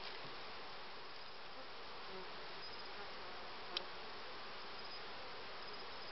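Honeybees buzzing steadily around an opened hive, a dense even hum with no pauses. A single sharp click a little past halfway through.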